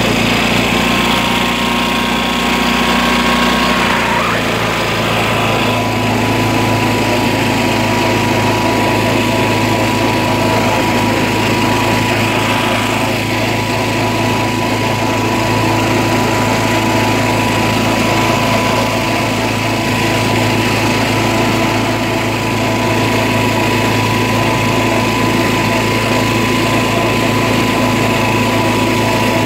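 John Deere lawn tractor engine running steadily under way, with a brief shift in the engine note about four seconds in.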